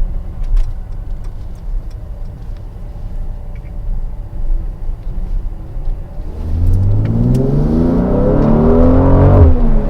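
Mercedes-AMG GLC 43's twin-turbo V6 running low and steady, then revving up hard under acceleration from about six seconds in, its pitch rising and getting louder until the revs drop sharply near the end.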